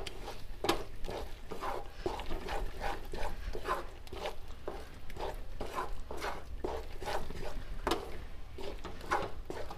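A spatula stirring and scraping thick coconut peda dough around a nonstick pan, in a steady run of strokes about two to three a second. The dough, with ghee mixed in, is being cooked down until it comes away from the pan without sticking.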